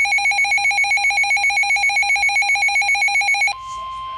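Emergency alert tones: a rapid, pulsing electronic alarm beep with several pitches cuts off about three and a half seconds in. A single steady tone just above 1 kHz follows, the weather-radio warning alert tone that comes before a spoken warning.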